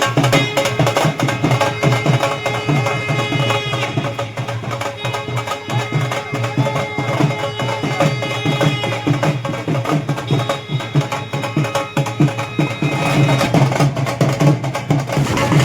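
Background music with a quick percussion beat and held melodic tones.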